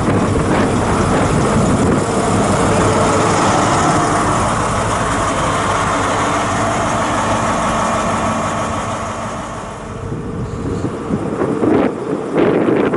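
Class 43 HST power car's diesel engine running loud and steady at close range. About ten seconds in it fades, and wind gusts buffet the microphone near the end.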